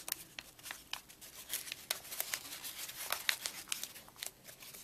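Paper and a plastic bag crinkling and crackling in the hands as they are handled and taped, in a run of irregular sharp crackles.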